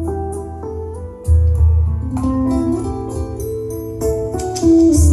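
Instrumental break in a slow ballad: a guitar melody over sustained backing, with the bass swelling in about a second in.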